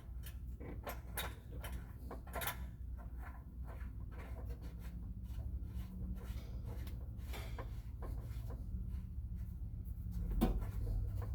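Scattered light clicks and scrapes of hands working the threaded oil dipstick on a Kawasaki Teryx4 engine, unscrewing it to check the freshly changed oil, over a low steady hum.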